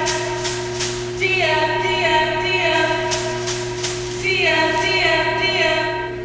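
Cheerleaders' voices chanting a defense cheer in unison, one short phrase twice about three seconds apart, with a few sharp hits between the phrases.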